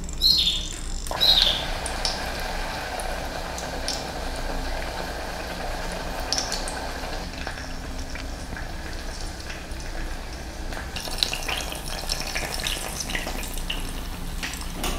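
Heart-shaped wonton-wrapper empanada frying in hot vegetable oil in a small pot: a steady sizzle of bubbling oil. Near the end come a few light clicks of plastic tongs against a dish.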